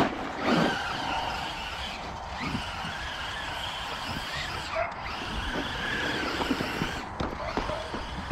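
Electric RC monster truck running, a Losi LMT with its brushless motor: the motor and gears whine steadily, the pitch rising and falling a little with the throttle.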